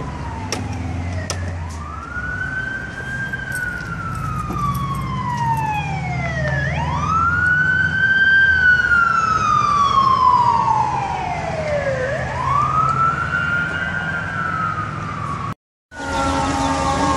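Emergency vehicle siren on wail, rising and falling slowly about every five seconds, over low traffic rumble. Near the end the sound drops out for a moment, then a siren falling in pitch begins.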